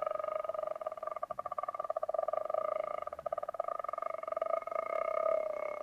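A continuous buzzing drone at one steady pitch, with a fast rattle running through it, sagging slightly in pitch near the end.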